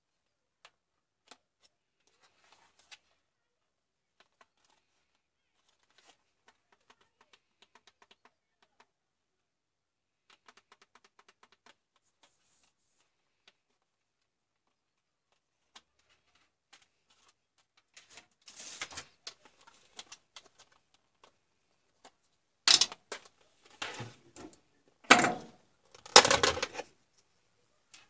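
Handling of a plastic digital photo frame: faint clicks and rubbing as it is turned over in the hands, then, in the last ten seconds, several loud knocks and clatter as it is put down and flipped over on the workbench.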